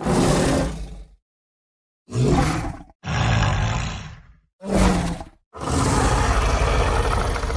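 Sound-designed Yutyrannus dinosaur roars: five separate roars with short silences between them, the last and longest still going at the end.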